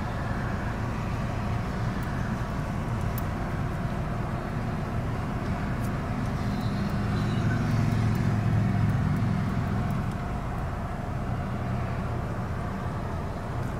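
Steady low rumble of a car heard from inside the cabin, engine and road noise, swelling a little in the middle.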